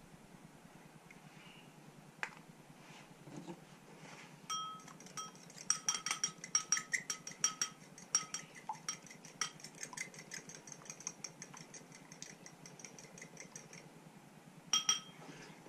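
A fork whisking a beaten egg in a bowl: quick, rhythmic metallic clinks of the fork against the bowl, starting about four seconds in and stopping shortly before the end, then a couple of separate taps on the bowl.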